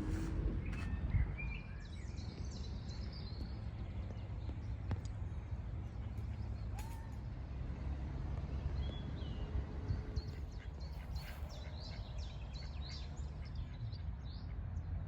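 Small birds chirping and tweeting in short scattered calls, busiest near the start and toward the end, over a steady low rumble.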